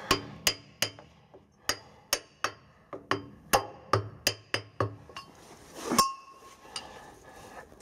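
Repeated hammer blows on a hammer used as a drift, its wooden handle butt knocking loose the connecting-rod big-end bearing cap inside a Sentinel steam wagon engine's crankcase. About a dozen sharp knocks with a short metallic ring, a third to half a second apart, the hardest about six seconds in.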